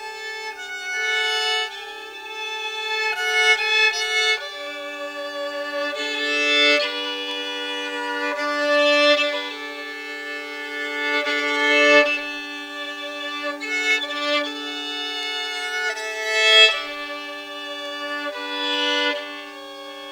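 Solo violin playing a slow melody of long bowed notes that swell and fade, over a steady held lower tone.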